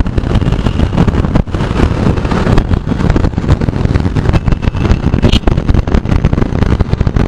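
Yamaha FZ V3's single-cylinder engine running while riding at steady speed, mixed with dense, fluttering wind and road noise on the microphone.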